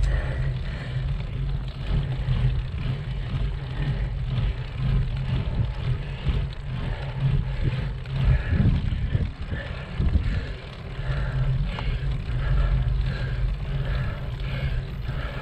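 Bicycle ride heard through the camera's microphone: an uneven low rumble of wind on the microphone mixed with tyre and road noise, rising and falling in level.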